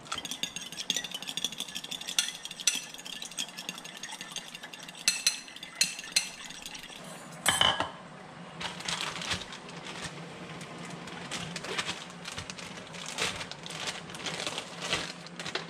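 A fork whisking eggs in a ceramic bowl: rapid clinking of the tines against the bowl with a light ring, for about seven seconds. Then a knock as something is set down, followed by rustling of a plastic zip-lock bag.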